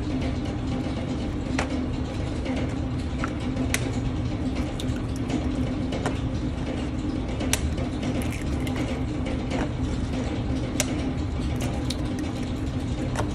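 Eggs being cracked by hand over a glass measuring jug: a sharp crack of shell every two seconds or so, over a steady low mechanical hum.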